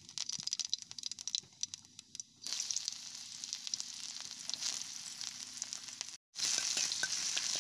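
Cumin seeds crackling and popping in hot oil in an iron kadai. About two and a half seconds in, a denser, steady sizzle starts as sliced red onion goes into the oil. The sound cuts out briefly about six seconds in and comes back louder.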